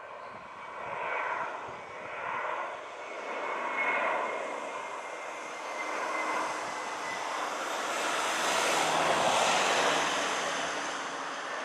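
Airbus A320-family jet airliner on final approach, its twin jet engines running at approach power with a faint whine. The sound swells and fades every second or two and grows loudest about eight to ten seconds in as the aircraft passes closest.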